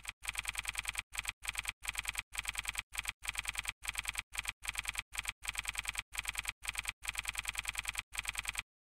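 Typing sound effect: rapid key clicks in short runs with brief gaps, stopping shortly before the end.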